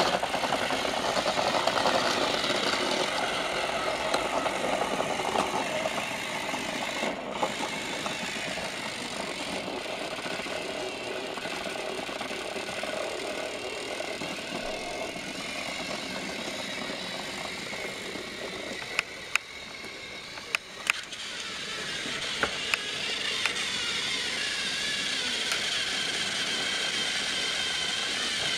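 Battery-powered Trackmaster toy train motors whirring as the engines run on plastic track, with wheel rattle. A few sharp clicks come about two-thirds of the way through, and a higher motor whine comes in near the end.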